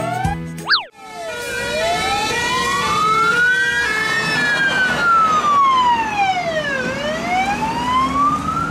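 About a second of children's music, then a fire engine's siren wailing, rising slowly in pitch for about three seconds, falling for about three, and rising again.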